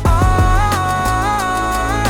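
A pop song playing: a sung "oh" held long and bending up and down in pitch, over bass and a steady drum beat.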